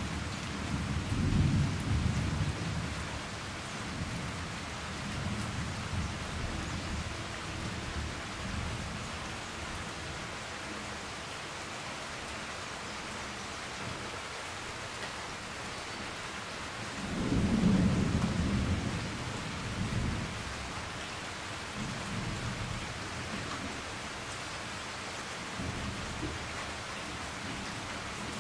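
Thunderstorm: steady rain hiss with low rolls of thunder, a few near the start and the loudest about seventeen seconds in.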